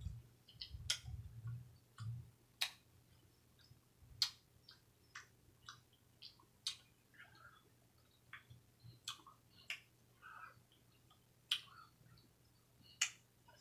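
Faint close-up chewing while eating a taco: irregular mouth clicks and wet smacks, roughly one every half second to second.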